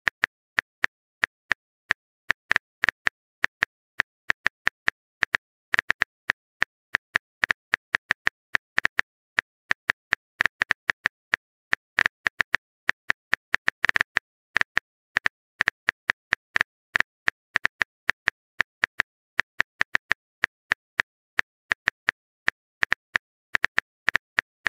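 On-screen phone keyboard typing sound effect: a run of short, sharp key clicks, several a second at an uneven pace, with silence between them.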